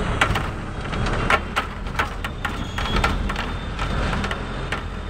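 Road noise from riding in a moving vehicle through city traffic: a steady low rumble with irregular rattles and knocks.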